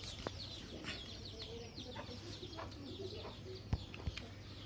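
Small birds chirping over and over in quick downward-sweeping calls, with two sharp knocks near the end.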